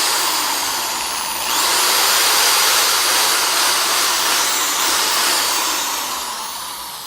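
Power drill running at high speed, boring a bolt hole through a plastic Mustang chin spoiler. It gets louder about a second and a half in, then winds down and fades near the end.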